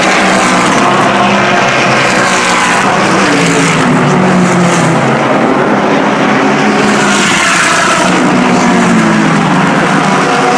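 Several sports prototype and GT race cars passing at speed one after another, their overlapping engine notes rising and falling as each goes by.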